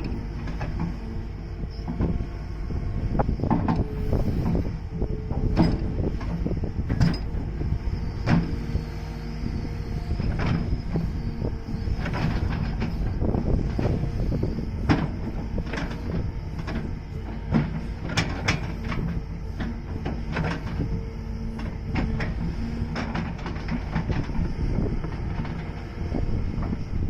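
Hydraulic excavator at work: its diesel engine running steadily under load, with frequent irregular knocks and clanks of the working gear throughout.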